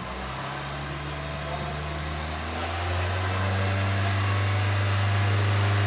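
Toyota 1.8L four-cylinder engine of a 2001 Chevy Prism brought up from idle and held at about 3,000 rpm in park, getting louder over the first three seconds and then running steadily.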